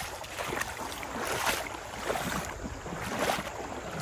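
Creek water sloshing and splashing in uneven surges about once a second as someone moves upstream through it.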